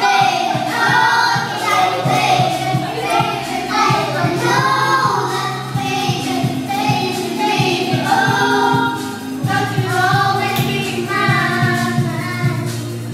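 A group of children singing together into microphones over a karaoke backing track.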